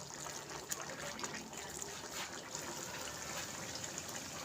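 Water trickling steadily, with scattered small clicks.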